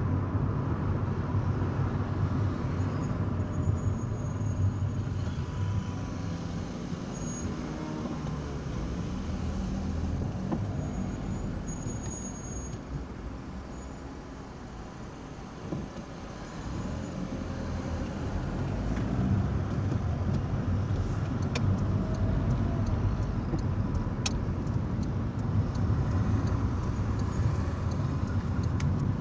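Car engine and road noise heard from inside the cabin while driving. The noise drops for a few seconds about halfway through, then grows louder again.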